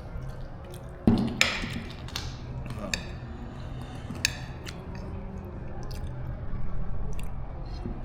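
Eating sounds: chewing, with a few sharp clinks of cutlery on a plate, the loudest about a second in.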